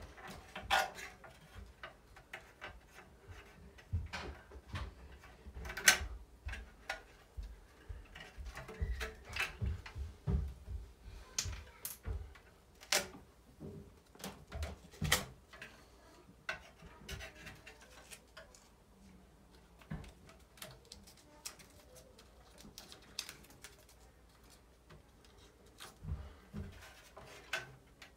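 Irregular clicks, crinkles and light knocks from hands working duct tape and a sheet-metal exhaust fan housing, busier in the first half.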